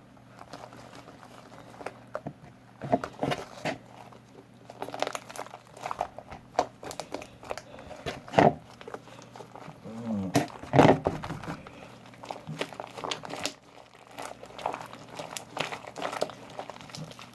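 Slime being squeezed and kneaded by hand, making irregular crackling and squelching sounds, loudest about halfway through.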